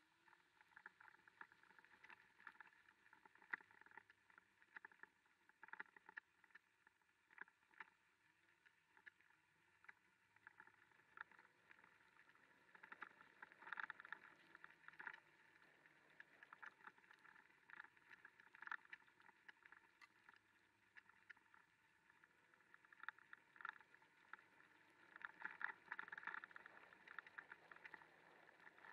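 Very faint, irregular patter of rain and sleet drops striking the camera, with a faint low hum from the scooter that rises and falls beneath it.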